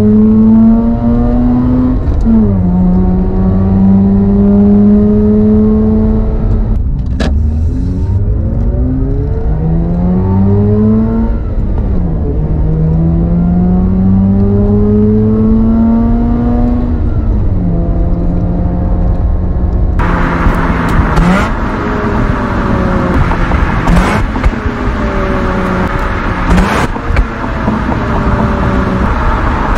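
Mazda RX-8's two-rotor Renesis rotary engine accelerating hard through the gears, heard from inside the car: the pitch climbs to high revs, then drops at each upshift, about four times. Later it is downshifting, with quick throttle blips that briefly rev the engine between gears, over road noise.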